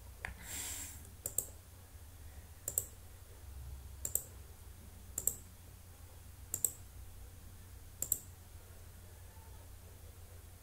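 Computer mouse button clicking: seven sharp double clicks at an even pace, about one every second and a half, then stopping, over a faint low hum.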